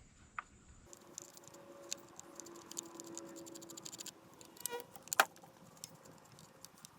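Faint scattered metallic clicks and taps of a screwdriver and small parts as the kill switch is worked out of a Husqvarna 395 chainsaw, with one sharper click about five seconds in. A faint steady hum lies underneath.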